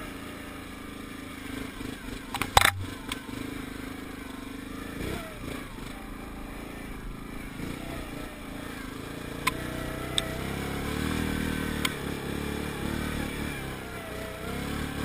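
Yamaha Grizzly 700 ATV's single-cylinder engine running as it rides along a trail, getting louder about ten seconds in. A loud knock comes about two and a half seconds in, and a few sharp clicks follow later.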